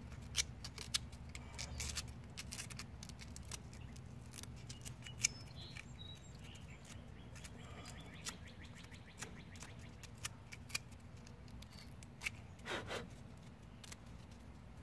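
Scattered sharp clicks and small scrapes of hand tools and push-on wire connectors being worked on an air-conditioner relay's corroded wiring, over a low steady hum.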